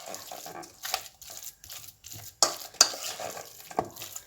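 A spoon stirring and mashing a thick paste in a bowl: uneven scraping with a few sharper clinks against the bowl in the second half.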